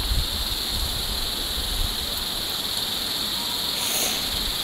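A steady high-pitched hiss, with a low rumble of wind on the microphone fading out in the first moment and a brief brighter rustle about four seconds in.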